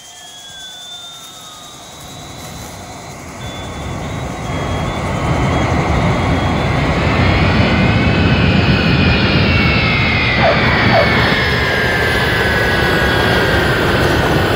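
Jet airplane engine sound: a rushing noise with a high whine that grows louder over the first few seconds, then holds loud while the whine slides slowly down in pitch.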